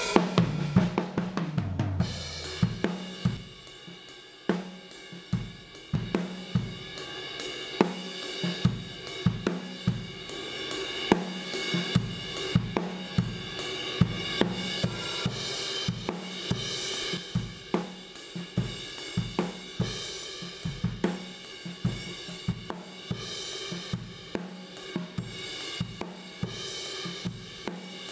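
A recorded drum kit beat (kick, snare, hi-hat and cymbals) played through an MXR Dyna Comp compressor pedal while it is switched and re-levelled. About two seconds in the sound changes, with more bright cymbal ring and less low end.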